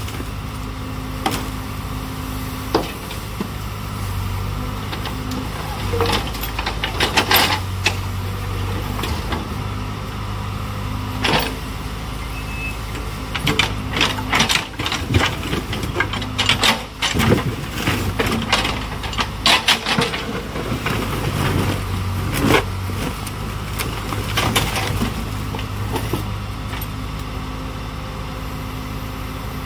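Backhoe loader's diesel engine running steadily at work, with repeated short clanks and knocks scattered through, thickest in the middle stretch.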